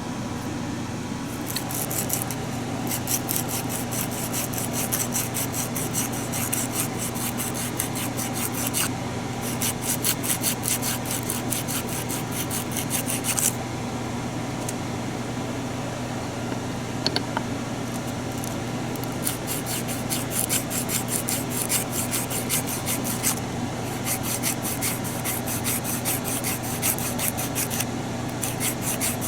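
Fine 220-grit sandpaper rubbed by hand over a part of a power window motor, in quick back-and-forth strokes, in four runs with short pauses between. A steady low hum runs underneath.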